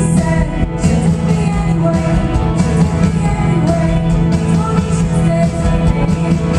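Live rock band playing a song, with electric guitars, bass and drums and a vocal over them.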